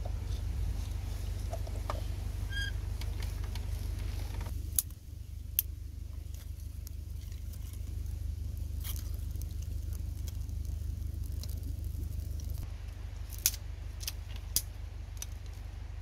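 Wet handling of raw catfish as seasoning is rubbed in by hand in a metal pot. About five seconds in it gives way to a small fire of dry grass and twigs, with scattered sharp pops and crackles, a few at a time, over a steady low rumble.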